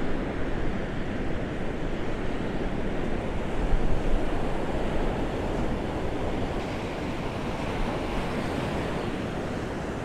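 Ocean surf breaking and washing up a sandy beach: a steady rush of waves that swells briefly about four seconds in.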